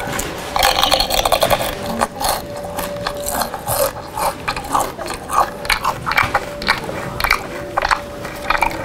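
Loud, irregular crunching and chewing of food amplified through a handheld megaphone held at the mouth.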